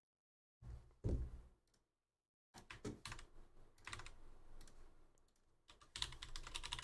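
Computer keyboard typing: a run of quick key clicks that gets denser and louder near the end, after a single thump about a second in.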